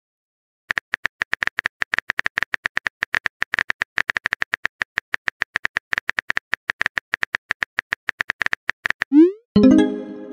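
Simulated phone-keyboard typing from a texting-story app: a long run of rapid, evenly spaced clicks. Near the end comes a quick rising swoop and a short pitched chime as the message is sent.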